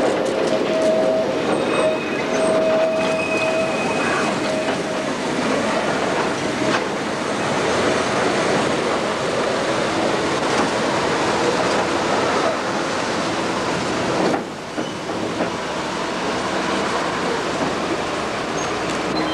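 Narrow-gauge train running, heard from on board: a steady rumble and rattle of wheels on track, with a high wheel squeal coming and going in the first few seconds. The noise drops a little about 14 seconds in.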